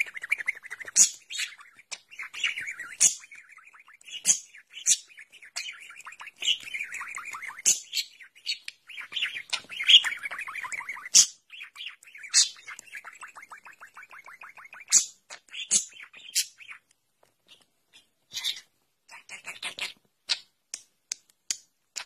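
Budgerigar warbling and chattering: long runs of rapid, raspy notes mixed with sharp high chirps, thinning to scattered short chirps and clicks in the last few seconds.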